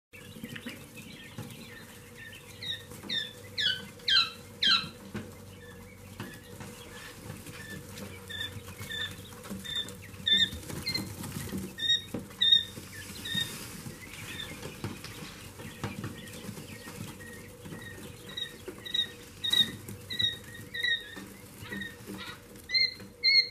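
Quail chicks peeping: a run of loud, steeply falling peeps a few seconds in, then short chirps about twice a second, with a steady faint hum underneath.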